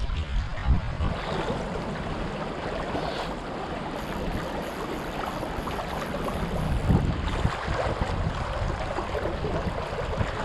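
Fast river current rushing steadily, with wind rumbling on the microphone.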